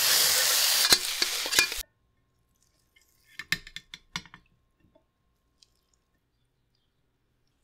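Fried rice sizzling in a wok, with a metal spatula scraping and clinking against the pan; the sizzle cuts off abruptly a little under two seconds in. About three and a half seconds in comes a short cluster of light clinks and scrapes as a metal spoon serves the rice onto a plate.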